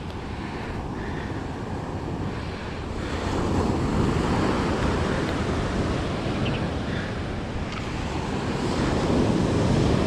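Ocean surf washing onto the beach, with wind buffeting the microphone. The wash swells about three seconds in and again near the end.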